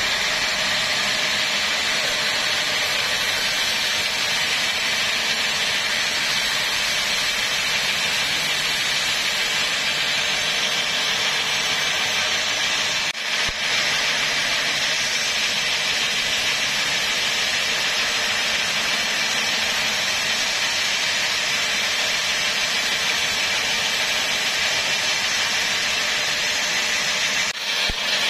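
Diesel-driven band sawmill running steadily, its band blade sawing through a teak log with a continuous high hiss over the engine's drone.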